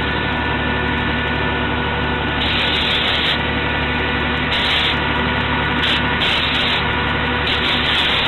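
Rasping, sanding-like strokes in several bursts of about half a second to two seconds, over a steady machine hum.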